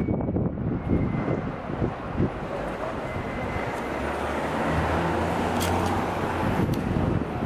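City street traffic noise. A motor vehicle's engine hum swells and holds through the second half, and a couple of sharp clicks come near the end.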